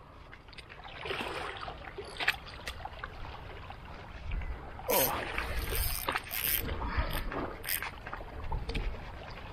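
Water washing and sloshing along the shore under a fluctuating low wind rumble on the microphone, with scattered clicks and knocks. A louder rushing stretch about five seconds in.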